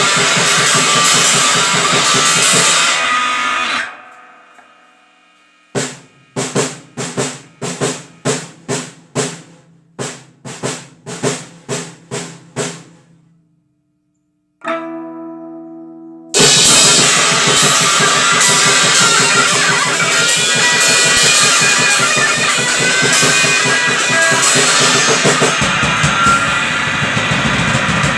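Grindcore band with distorted guitar and drums playing loudly, stopping about four seconds in. Then a run of single guitar notes picked evenly about twice a second, a short silence, and one ringing chord, before the full band crashes back in near the middle and plays on loudly.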